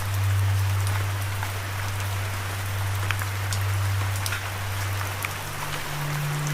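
Steady rain falling, with scattered individual drop ticks, over a low held drone tone that steps up in pitch a little past five seconds in.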